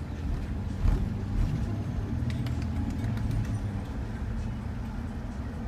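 Shuttle van on the road: a steady low hum of engine and road noise, with a knock about a second in and a few light clicks and rattles after it.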